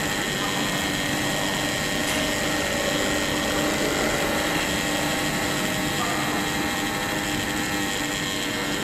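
Industrial IQF quick-freezing machine running steadily: an even mechanical drone with several constant hum tones, from its fans and compressor.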